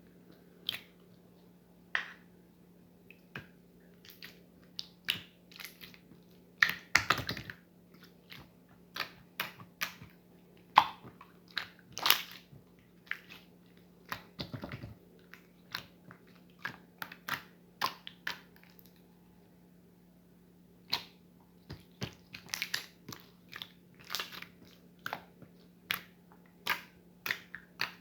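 Slime being pressed and stretched by hand, giving irregular sharp pops and clicks, a few a second with short pauses, over a faint steady low hum.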